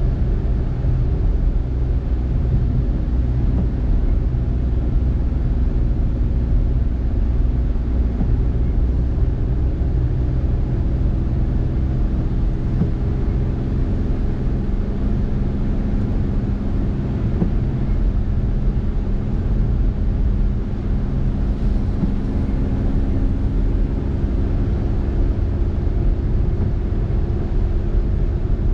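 Car driving on a wet road: steady tyre and road noise with a low engine rumble and a faint engine hum that becomes clearer about halfway through.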